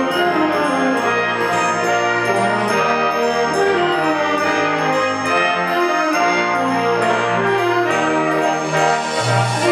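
Concert wind band playing a slow passage of sustained chords, brass prominent over moving low bass notes, with a rising high shimmer swelling near the end.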